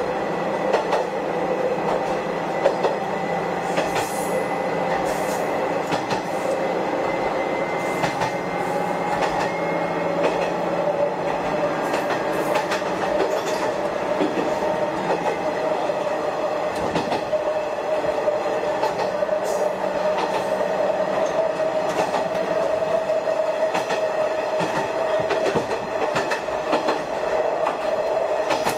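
SKR500-series diesel railcar under way, heard from inside the car: a steady running rumble with a whine that edges up in pitch over the second half, and scattered clicks of the wheels over the rail joints.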